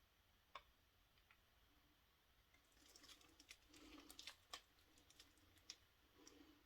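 Near silence, with a few faint small clicks and a short spell of soft rustling and clicking about halfway through, as small items are handled at a work surface.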